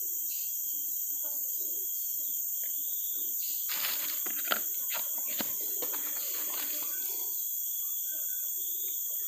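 A steady, high-pitched chorus of forest insects drones throughout. From about three and a half to seven seconds in, close rustling and a few sharp clicks come from fishing tackle being handled while a hook is baited.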